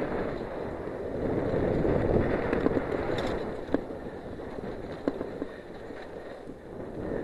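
Giant Glory downhill mountain bike descending a dusty, rocky dirt trail: tyres rolling and skidding over dirt and stones, with wind rushing over the on-board camera's microphone. A few sharp clicks and knocks stand out, about a third of the way in, around the middle and about two-thirds through.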